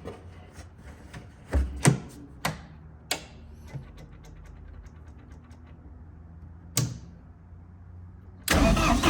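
Turbo diesel generator engine running steadily at a low pitch, just started, with several sharp clicks or knocks in the first few seconds and one more near seven seconds in. A loud burst of noise comes near the end.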